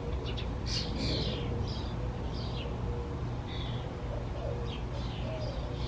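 Small birds chirping, a string of short high chirps scattered throughout, over a steady low background rumble.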